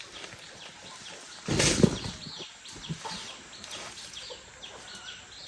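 Chickens: a burst of wing flapping about one and a half seconds in, over many short high calls, each falling in pitch.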